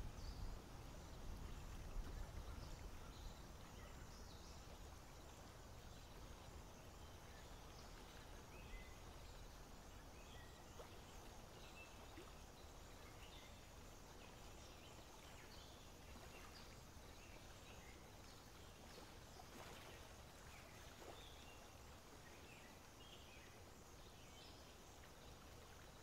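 Faint outdoor ambience: a low rumble, strongest in the first couple of seconds, with scattered faint high chirps of small birds.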